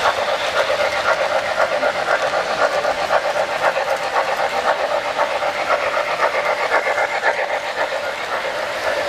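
Three-rail O gauge model train running on its track: a steady, rapid clatter that holds at an even level.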